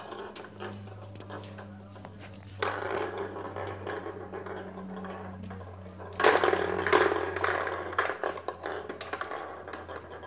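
Plastic balls rolling and rattling around a circular cat track toy as a kitten bats at them, in spells, the loudest about six seconds in. A low steady hum runs underneath.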